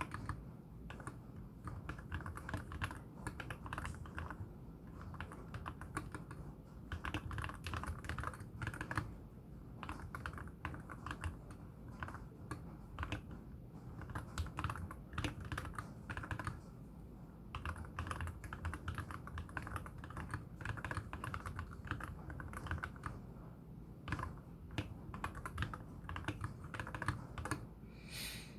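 Typing on a MelGeek Z70 Ultra mechanical keyboard with lubed KTT Wine linear switches and tall MA-profile spherical keycaps: bursts of rapid keystrokes with short pauses, a deep wood-block-like sound. One sharper, brighter click near the end.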